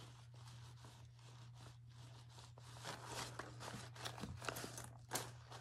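Faint rustling, crinkling and light clicks of craft materials being handled, over a low steady hum.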